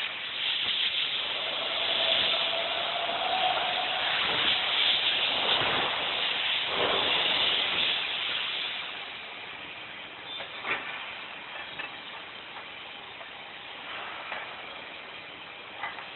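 Automatic car mat making machine running with a loud, steady hiss for about eight seconds. The hiss then drops away to a quieter machine hum with a few sharp clicks.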